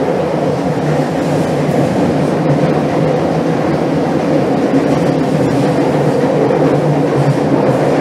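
Madrid Metro Line 1 train running through a tunnel: a steady, loud rumble of wheels on rail with a low motor hum underneath.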